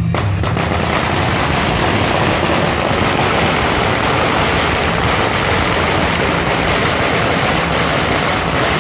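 A long string of firecrackers going off in a dense, continuous rapid crackle of small bangs, set off with a sharp crack at the start.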